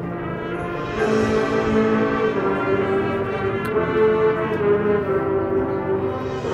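High school marching band playing long held brass chords, growing louder about a second in.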